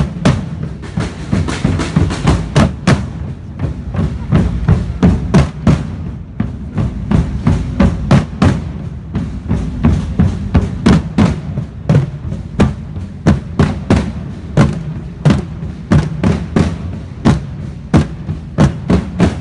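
A drum corps of several drummers beating a steady marching rhythm on their drums, sharp strokes over a deep drum boom.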